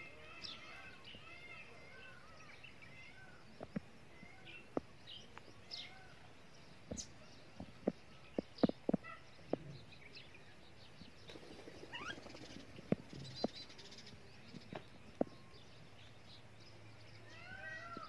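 Rose-ringed parakeets twittering in short repeated chirps near the start and again near the end. Scattered sharp clicks and taps run through the middle, the loudest a quick cluster about eight to nine seconds in.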